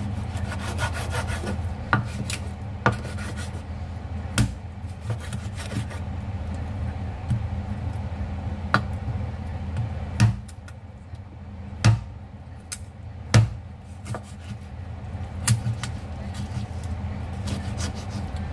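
A somewhat blunt kitchen cleaver chopping raw chicken on a wooden cutting board: sharp chops at irregular intervals, a second or more apart, with handling and scraping of the meat between them. A steady low hum runs underneath.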